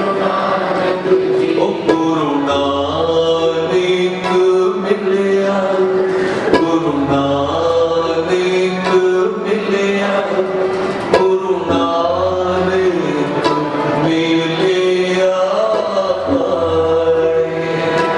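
Sikh kirtan: male voices singing a devotional hymn to two harmoniums, with a tabla keeping the beat.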